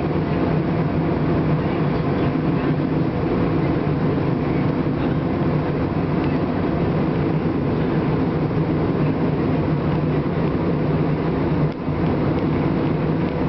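Steady cabin noise of a jet airliner in flight: engine and airflow noise heard from inside, with a brief dip a little before the end.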